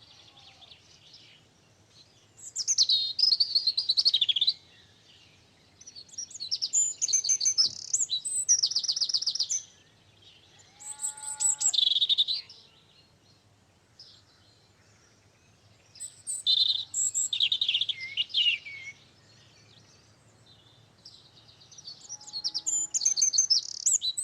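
A songbird singing: five high-pitched song phrases, each a couple of seconds long, with short pauses between them.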